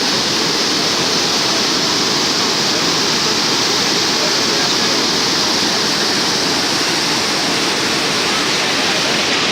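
Water rushing steadily, a loud even rush with no breaks.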